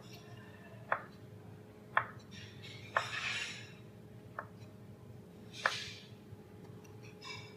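Kitchen knife cutting dragon fruit on a plastic cutting board: five sharp taps of the blade against the board, roughly a second apart. Two of the taps are followed by a short scraping hiss.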